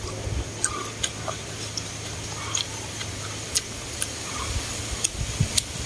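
Eating sounds: scattered light clicks and taps of wooden chopsticks and chewing, a dozen or so spread irregularly, over a low steady hum.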